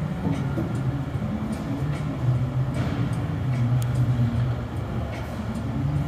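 A steady low mechanical drone that shifts a little in pitch, with a few faint ticks.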